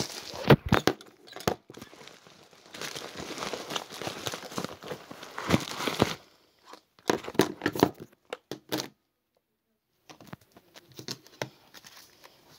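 Plastic packaging crinkling and rustling in irregular bursts as it is handled and unwrapped, with a few sharp knocks. It drops out completely for about a second two-thirds of the way through, then comes back fainter.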